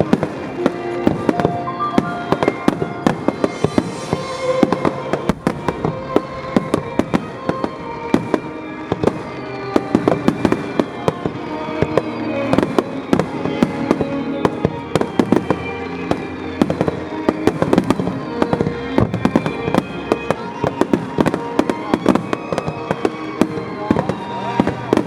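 Fireworks going off in quick succession, many sharp bangs a second throughout, with music playing under them.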